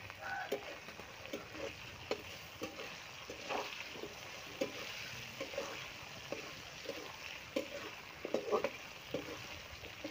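Potato wedges frying in oil in a metal kadai with a steady sizzle, while a flat metal spatula scrapes and knocks against the pan in quick irregular strokes as they are stirred.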